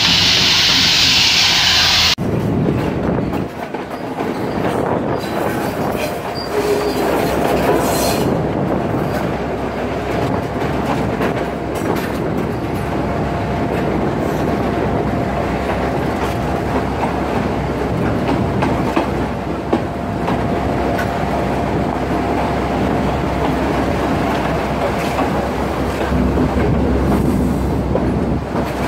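A loud hiss for about two seconds, then a diesel locomotive running, heard from on board as it rolls slowly along the track. Its wheels clatter on the rails, and a thin steady whine runs through most of it over a low rumble.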